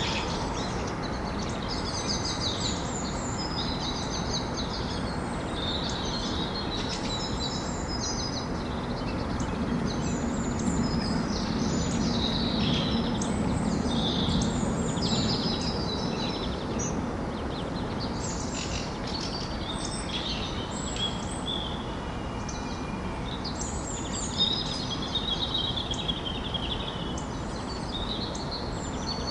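Morning birdsong: several small birds chirping and trilling at once, over a steady low city hum that swells for a few seconds mid-way.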